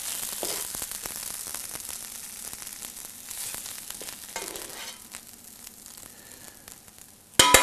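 Sautéed spinach sizzling in oil in a frying pan, fading as the pan is held off the heat, with light clicks of metal tongs against the pan. A loud metallic clatter comes near the end.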